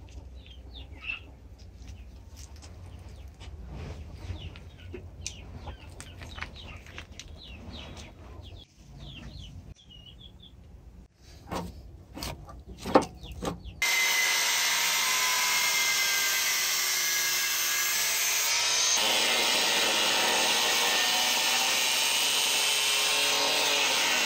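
Birds chirp faintly, with a few clicks of hands on gravel. About fourteen seconds in, an electric angle grinder starts up and cuts into the rusted steel foot of an old air compressor tank: a loud, steady whine whose pitch sags as the disc bites, growing harsher from about nineteen seconds on.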